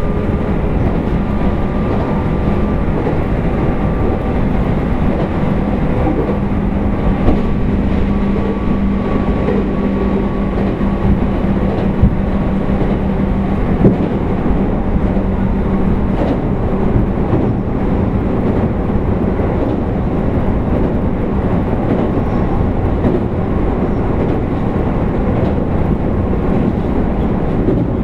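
Abukuma Express 8100 series thyristor phase-controlled AC electric multiple unit running along the line: steady wheel-on-rail rumble with a steady electrical hum and a few short knocks.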